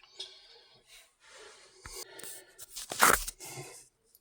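Rustling and handling noises, with a short click near two seconds in and a louder scraping crunch with a dull thump about three seconds in.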